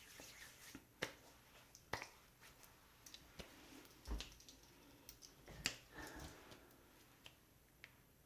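Scattered soft clicks and taps of small objects being handled close to the microphone, a few louder clicks among fainter ticks.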